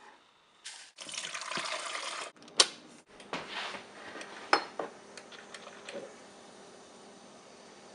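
Kitchen sounds: water running or pouring for about a second and a half, then sharp clinks of dishes, then a few light knocks over a faint steady hum.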